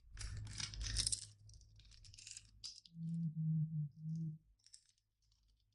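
Plastic packaging rustling and crinkling in bursts as a tight-fitting phone mount is worked out of its box, followed by three short hums from a voice about three seconds in and a few faint clicks.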